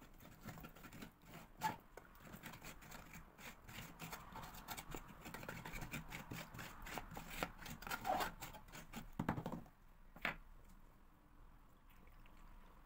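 Metal utensil stirring and scraping a wet stone-powder casting mix in a plastic tub, a quick run of scrapes and clicks against the tub's sides and bottom. The stirring stops about ten seconds in, followed by a single knock.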